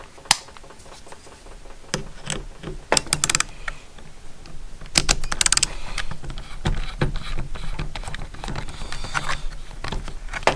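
Irregular clicks and rattles of a plastic-packaged ratcheting screwdriver being handled while the screw holding it to its packaging is removed. There are two short runs of rapid clicking, about three and five seconds in.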